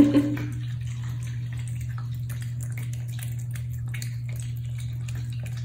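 Two cats eating wet pâté cat food: a run of quick, wet licking and chewing smacks over a steady low hum.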